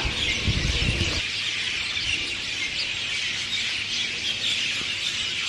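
Many birds chirping at once in a tree, a dense, unbroken twittering: a dawn chorus. A low rumble sits under it for the first second or so.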